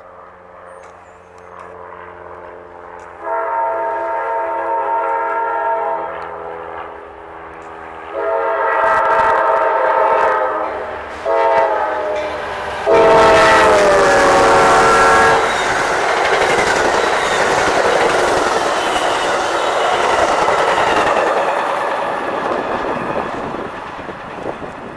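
Amtrak passenger train's diesel locomotive horn sounding the grade-crossing signal: two long blasts, a short one, and a final long blast that drops in pitch as the locomotive passes close by. The horn is followed by the loud rumble of the passenger cars rolling past over the rails, fading toward the end.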